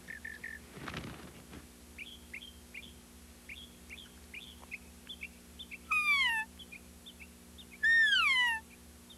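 Elk cow call blown by a hunter: a run of short, high chirps, then two loud mews falling in pitch, about six and eight seconds in, to lure a bull.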